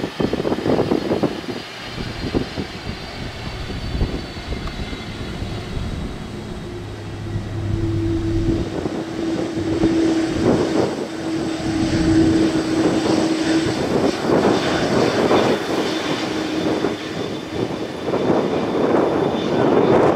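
Airbus A330 jet engines whining as the airliner rolls past on the runway; the high whine falls in pitch over the first few seconds, and a steady hum follows. Wind gusts buffet the microphone throughout.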